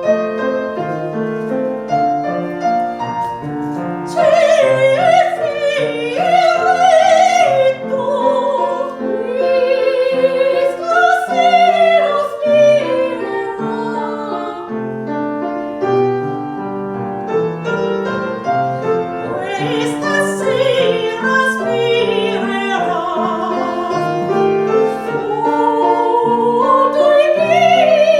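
Operatic soprano singing with vibrato over piano accompaniment, in a classical aria.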